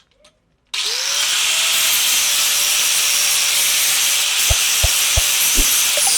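An abrasive power tool grinding or sanding. A loud, steady hiss starts abruptly under a second in, with a few knocks past the middle, then a falling whine near the end as it winds down.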